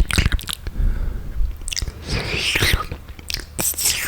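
Wet mouth sounds very close to the microphone: quick saliva clicks and smacks, with a longer wet hiss about halfway through.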